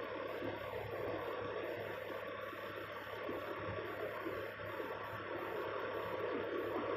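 Steady din of roadworks machinery and passing traffic, an even rushing rumble with no distinct strikes or pauses.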